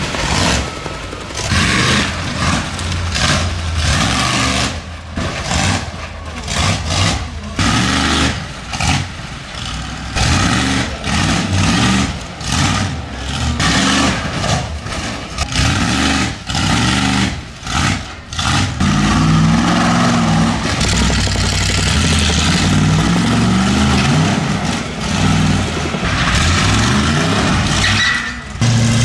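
Monster truck engines revving hard as the trucks drive up onto and over junk cars, the note rising and falling with the throttle. The sound breaks off and comes back many times in the first part, then runs steadier and loud near the end with the pitch sweeping up and down.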